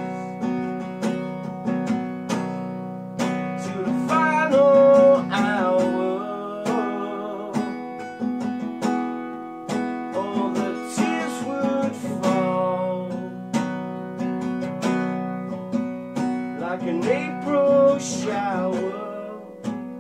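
Acoustic guitar strummed in a steady rhythm while a man sings, his voice coming in phrases with guitar-only gaps between them.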